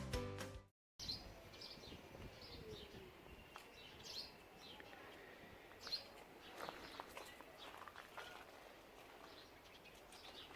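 Faint, scattered short chirps of small birds over quiet outdoor ambience. Background music cuts off in the first second.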